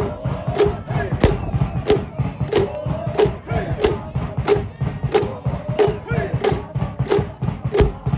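Baseball cheering section chanting and shouting in unison to a steady drum beat of about one and a half beats a second, with music alongside.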